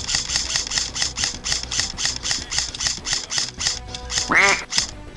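Background music with a quick, even beat of bright high hits, about four to five a second, and a short cry that rises and falls in pitch about four seconds in.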